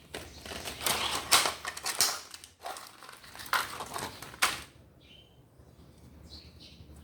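Irregular scraping, clacking and rattling of hands working with tire-repair tools for about four and a half seconds, then quieter with a few faint bird chirps.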